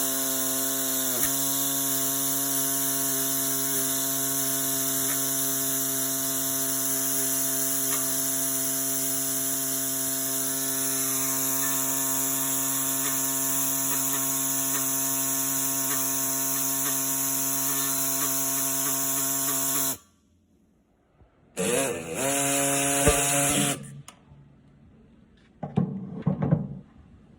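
Pneumatic air saw running steadily with a high hiss as it cuts off the head of a broken rivet. It stops about twenty seconds in, runs again briefly for about two seconds, then a few light clicks and scrapes follow near the end.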